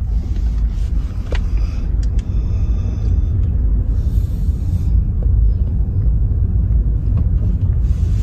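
Steady low rumble of a car driving in city traffic, heard from inside the cabin.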